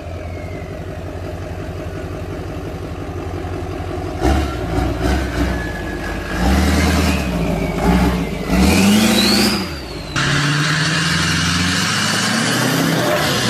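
Lifted Chevrolet Silverado diesel pickups with hood-mounted exhaust stacks revving, with a turbo whistle that glides up and then down in pitch. About ten seconds in the sound cuts to another truck running loud with a steady hiss.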